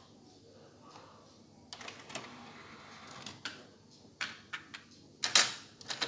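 Panasonic cassette deck being handled: a short stretch of sliding, rubbing noise about two seconds in, then a series of sharp mechanical clicks and clacks from its keys and tape door, the loudest about five seconds in.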